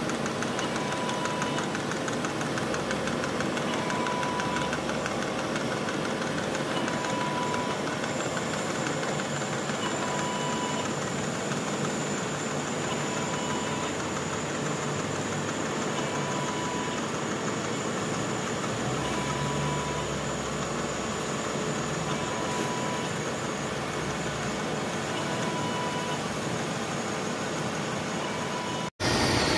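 Manual vertical milling machine running, its end mill cutting the tooth gaps of a sprocket held on a dividing head. A steady metal-cutting noise with a fine, rapid chatter from the cutter.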